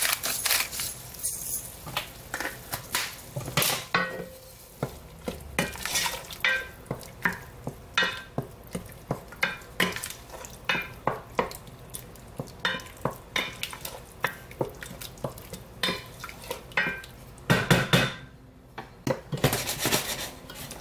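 Wooden spoon stirring thick chili in a stainless steel stockpot, knocking and scraping against the pot's sides about once or twice a second. Near the end comes a louder clatter as the pot is taken by its handle and moved.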